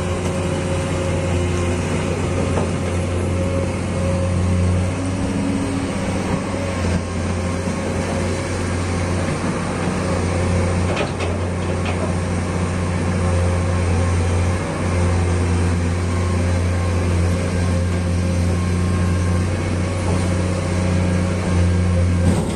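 Komatsu PC200 hydraulic excavator's diesel engine running steadily under working load as the machine digs and moves mud, a continuous low drone.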